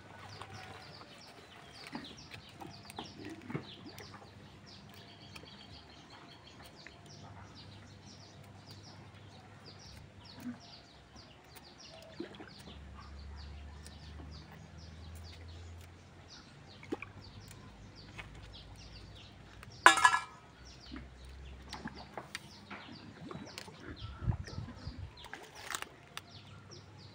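Quiet outdoor ambience with faint scattered bird chirps throughout, and one loud, short squawk from a bird about twenty seconds in.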